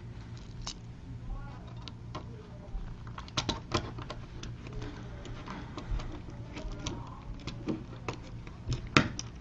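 Wall light switch being handled, reassembled and pressed: irregular small plastic clicks and taps, some in quick clusters, over a low steady hum.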